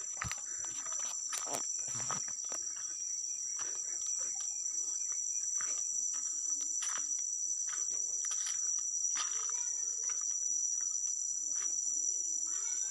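Steady, high-pitched chorus of insects, two unbroken tones, with irregular rustles and snaps of footsteps moving through vegetation.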